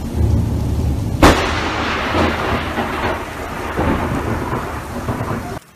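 Close lightning strike: a sharp thunderclap crack about a second in, then crackling, rolling thunder that cuts off suddenly near the end. Under it, steady rain and a low rumble.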